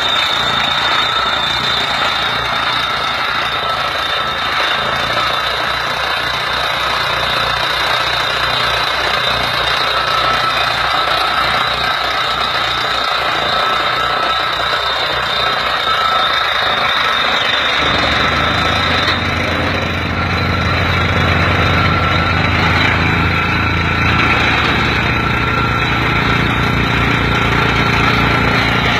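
Tractor-mounted water well drilling rig running, its tractor engine driving the rig's hydraulics through the PTO, with a steady high whine over rapid knocking. The low end of the sound grows louder about 18 seconds in.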